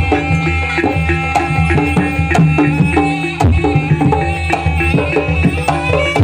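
Live Javanese gamelan music for a barong dance, with quick, dense hand-drum (kendang) strokes over steady pitched gamelan notes.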